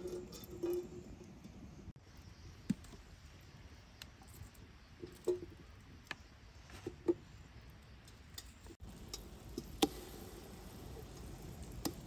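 Scattered light taps and clicks of hand food preparation: a glass and sliced potatoes handled against a large metal cooking pot, over a low steady background noise.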